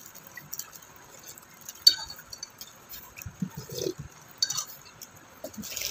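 Tableware clinking now and then during a meal, such as a utensil tapping a plate or bowl, with the sharpest clink about two seconds in and another near the end.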